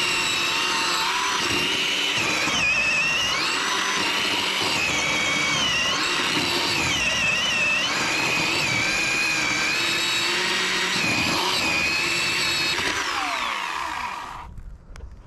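Bauer 20V cordless electric chainsaw running at full speed and cutting into a log: a steady high whine that dips in pitch several times as the chain bites into the wood. Near the end the trigger is released and the motor winds down with a falling whine.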